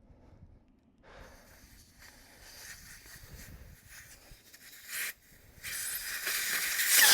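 Air hissing out of a tractor tire's valve stem as the tire is deflated: a short puff about five seconds in, then a steady hiss from a little later that gets louder toward the end.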